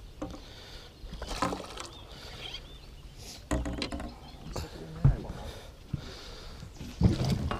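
Scattered knocks, bumps and rustles of gear being handled aboard a small fishing boat, with a dull thump about five seconds in and a louder clatter near the end.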